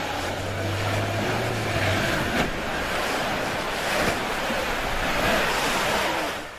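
Lada Niva 4x4 ploughing through a deep flooded track: water splashing and rushing around the wheels over the engine's low running drone.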